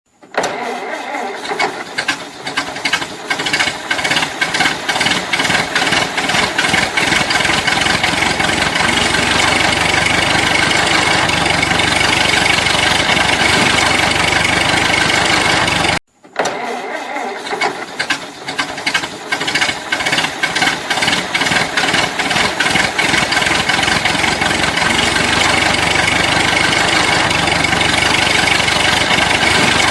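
Old car engine starting up and running unevenly, sputtering for the first few seconds before settling into a steadier run. The sound cuts off about halfway through and the same start-up plays again from the beginning.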